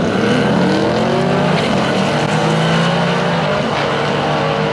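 Two drag cars launching from a standing start and accelerating hard down the quarter mile, their engine notes rising through the gears with shifts about one and a half and three and a half seconds in.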